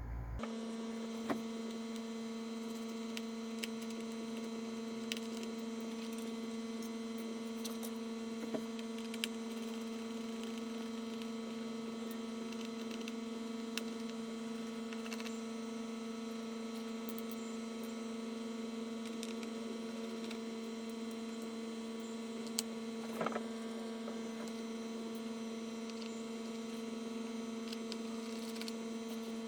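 A steady electrical hum, with a few small clicks and taps now and then.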